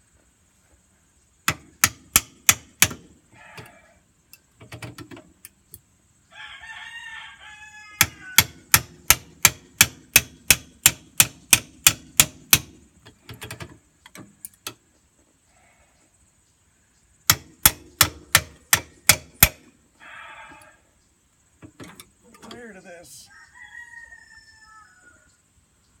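Three runs of sharp metal-on-metal hammer strikes, about three a second, on the press-fit water neck of a Nissan H25 engine. A rooster crows between the runs, once near a quarter of the way in and again near the end.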